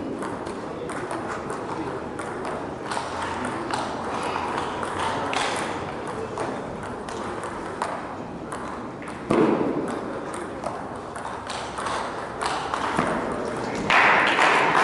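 Table tennis rally: the celluloid ball clicking off bats and table in quick succession over the murmur of a crowd in a hall. Near the end the crowd noise rises suddenly and loudly as the point ends.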